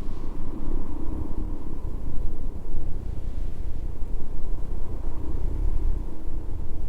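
Steady low rumbling noise that swells and fades unevenly, with a faint steady hum above it.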